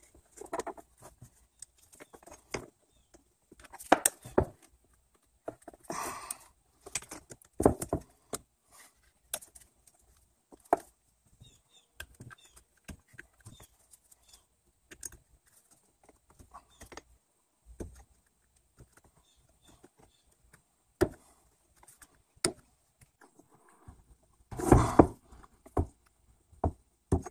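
Irregular small clicks, taps and scrapes from a plastic pry tool and gloved fingers working a rubber dust boot into place on a cast dual-piston brake caliper, with a louder knock now and then, the loudest near the end.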